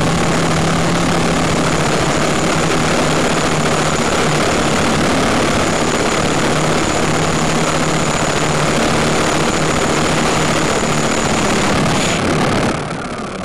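Quadcopter's electric motors and propellers running steadily in flight, heard through the craft's onboard camera microphone. Near the end the sound drops off sharply and keeps fading as the motors slow.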